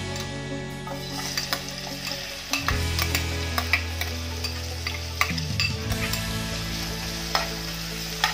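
Chopped onion sizzling as it starts to fry in hot oil in a metal pot, with a metal ladle clinking and scraping against the pot as it is stirred. The sizzle starts about a second in.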